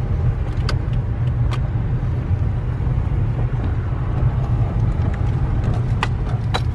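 Steady low road and engine rumble inside a moving car's cabin, with a few light clicks, once or twice about a second in and again near the end.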